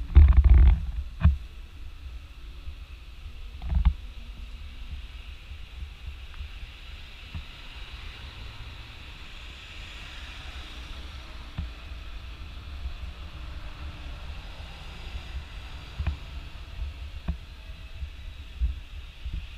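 Street traffic going by: a steady low rumble with vehicles passing, swelling for a few seconds around the middle. A few loud thumps come in the first second and again about four seconds in.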